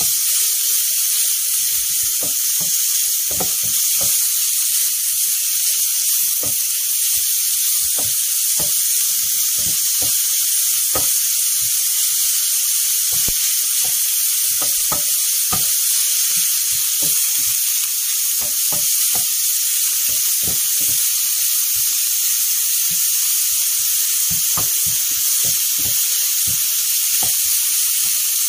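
Minced pork frying in hot oil in a nonstick pan, stirred with a wooden spatula: a steady, high sizzle with frequent small clicks.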